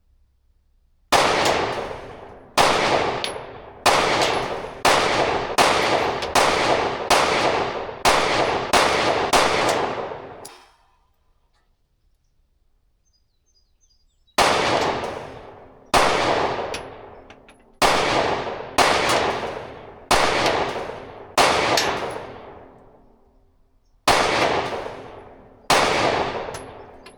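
Glock 43X 9mm pistol fired in a rapid string, each shot ringing out for about a second: about ten shots roughly a second apart, a pause of about four seconds, then about nine more.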